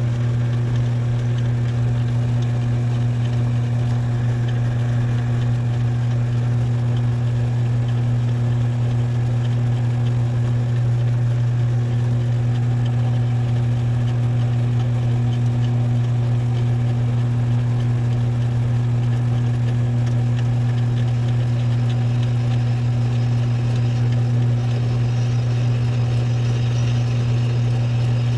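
Metal lathe running with a steady motor hum while a parting blade deepens an O-ring groove in a turned part. Near the end a higher hiss joins in as the blade cuts.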